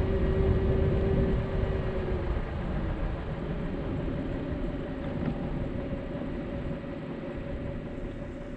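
Minivan rolling along the highway: steady low road and engine rumble with a faint steady whine, growing gradually quieter.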